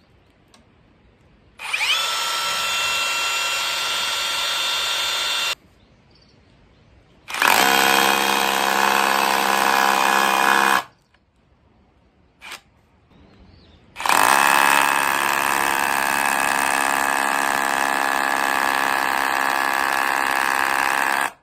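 Cordless KIMO hammer drill boring into an old wooden board in hammer-plus-drill mode. It runs in three bursts: about four seconds, then three and a half, then seven. Each starts and stops abruptly.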